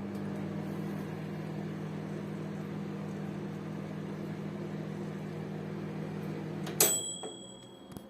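Gorenje MO17E1W microwave oven running with a steady electrical hum. About seven seconds in it shuts off, and the timer's bell gives a single ding that rings on briefly.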